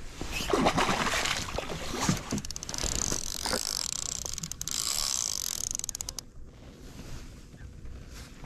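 Water splashing and a baitcasting reel's rapid clicking as a hooked pike is played beside the kayak; the commotion settles after about six seconds.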